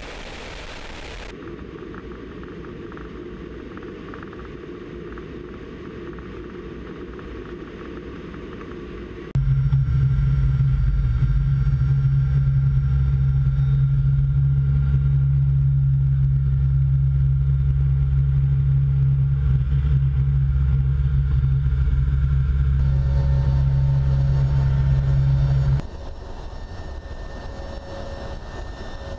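Steady drone of a military cargo aircraft's engines heard from inside its cargo hold, in several cut-together stretches. It is quieter at first, jumps to a loud low drone about a third of the way in, and drops back suddenly near the end.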